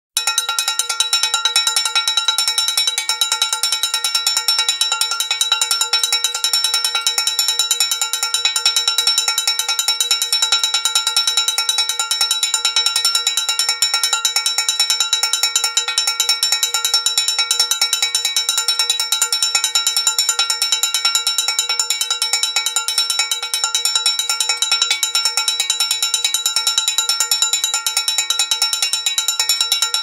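Cowbell struck rapidly over and over, a constant clattering run of metallic hits with a ringing tone on top.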